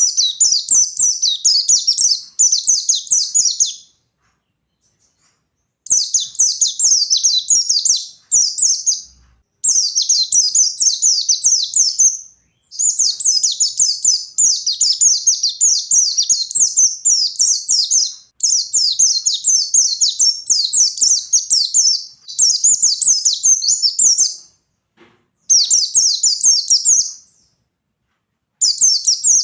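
White-eye (pleci) singing in the fast 'ngalas' style: long runs of rapid, high chirps and sweeps, broken by a few pauses of a second or two.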